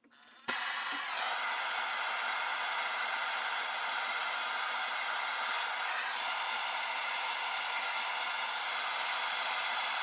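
Handheld propane torch burning with a steady hiss, starting about half a second in, while it heats a rifle barrel's rear sight base to melt the solder holding it on.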